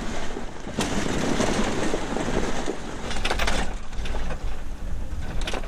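A car driving down a rough dirt mine road: the tyres crunch over gravel and rock under a steady low rumble, with a few sharp knocks over the bumps.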